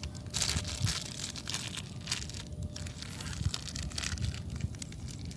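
Close crinkling and rustling, heaviest in the first two seconds, over a steady low rumble.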